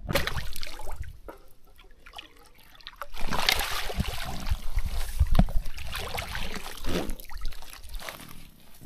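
Water splashing and sloshing as a fish is scooped into a landing net and lifted out, getting louder about three seconds in, with water streaming from the mesh.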